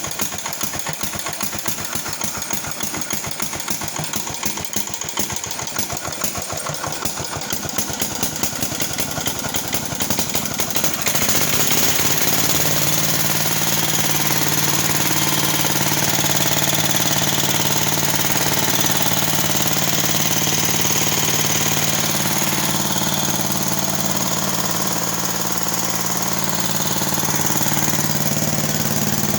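Bolens Estate Keeper EK7 garden tractor engine, choked and started by jumping the starter directly, cranking with rapid, rough pulsing. About eleven seconds in it catches and settles into steady running.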